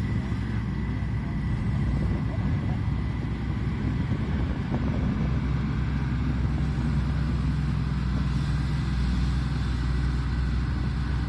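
Diesel engine of a Shantui ME210LC-1 crawler excavator running steadily under work.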